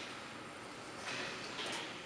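Faint mechanical hiss from an Elumatec DG 79 double miter saw, with two short, soft rushes of noise about a second in and again shortly after.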